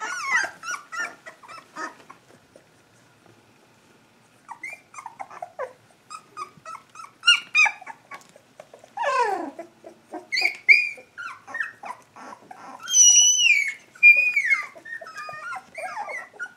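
Three-week-old Standard Schnauzer puppies whimpering and squealing in short, high-pitched cries that slide in pitch. The cries pause briefly a couple of seconds in, then start again and are loudest toward the end.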